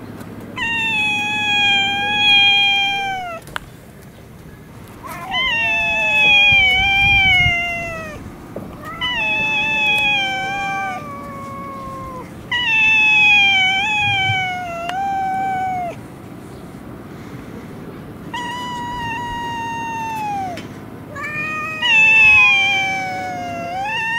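Stray cat caterwauling in a standoff with another cat: six long, wavering yowls, each falling in pitch, with short pauses between them. These are territorial warning calls before a fight.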